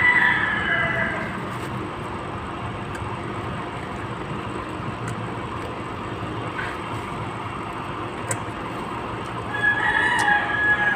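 A rooster crowing twice: one crow right at the start and another near the end, each about a second long, over steady background noise.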